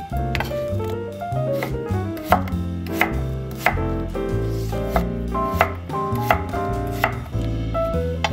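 Kitchen knife slicing a peeled raw potato on an end-grain wooden cutting board, each cut ending in a knock of the blade on the wood, about three cuts every two seconds. Background music with piano plays underneath.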